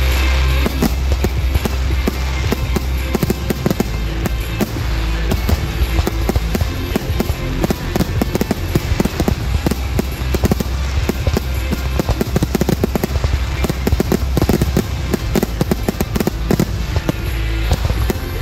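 Aerial fireworks shells launching and bursting in a rapid, continuous barrage of bangs, the dense closing volley of a display's finale, with music playing underneath.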